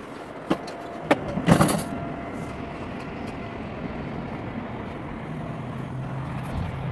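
Mountain-coaster sled running along its metal rail track: a steady rumble that grows a little louder in the second half, with a few sharp clicks and a short loud rattle in the first two seconds.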